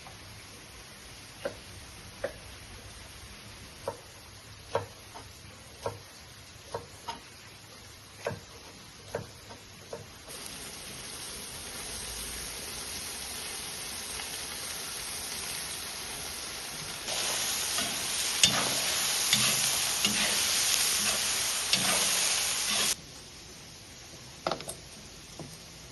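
Food frying in hot oil in a kazan: scattered clicks and knocks at first, then a steady sizzle that starts about ten seconds in and grows louder, with utensil clicks of stirring over it. The sizzle cuts off suddenly near the end, leaving a few more knocks.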